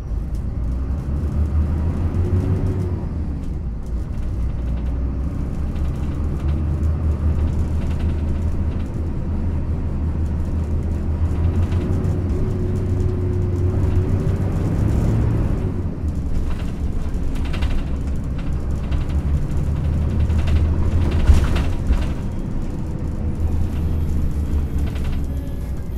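Yutong ZK6128HG low-floor city bus heard from inside the cabin while under way: a steady low engine and drivetrain rumble, with the engine note rising and falling. Body panels rattle and knock over uneven road, with a sharp knock about 21 seconds in, typical of the body's strong resonance with rough road surfaces on this bus.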